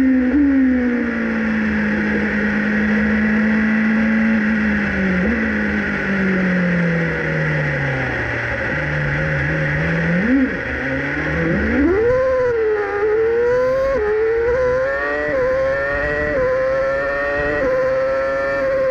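Engine of the 2019 Alfa Romeo Racing Formula 1 car, a 1.6-litre turbocharged hybrid V6, heard onboard. Its note falls steadily as the car slows and runs at low revs. About two-thirds of the way in it revs up sharply and accelerates, the pitch climbing and dipping briefly at each of several upshifts.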